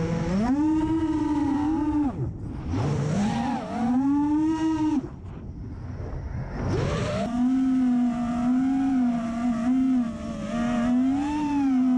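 Brushless motors and propellers of a 5-inch ImpulseRC Alien FPV racing quad, heard from its onboard camera, whining and rising and falling in pitch with the throttle. The whine drops away briefly about two seconds in and again for a couple of seconds in the middle. After that it holds fairly steady with a slight wavering.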